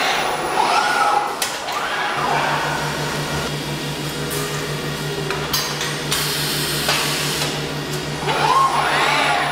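FANUC industrial robot arms moving, their servo motors whining up and down in pitch as each move speeds up and slows down, with a few short bursts of hiss. A steady low hum starts about two seconds in.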